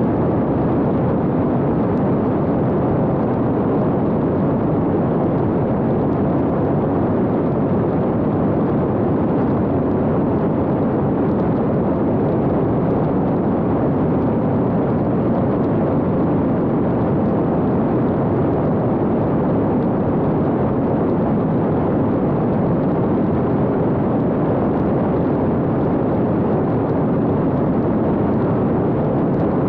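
Steady rushing noise of wind and airframe on a camera riding aboard an X-UAV Talon fixed-wing drone in flight, loud and unchanging throughout.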